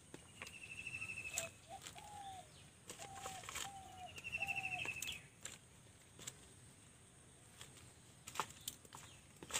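Birds calling: a rapid high trill twice and a run of short, lower, bending notes between them, with scattered clicks and rustles of hands working pieces of coconut husk into a plant pot.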